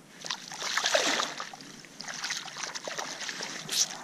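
Water splashing as a brown trout is let go from a hand in shallow water, loudest about a second in, followed by smaller splashes and drips as hands rinse in the water.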